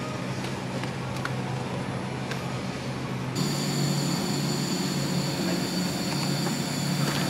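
Steady in-store hum and rumble, like a shopping cart rolling over a hard floor. About three seconds in, the sound changes abruptly: the rumble gets louder and several high steady whines join it.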